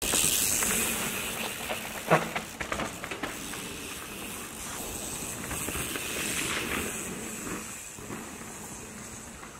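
Mountain bike riding over a dirt and stone woodland trail: a steady hiss of tyres rolling on loose ground, with a few sharp knocks and rattles about two to three seconds in.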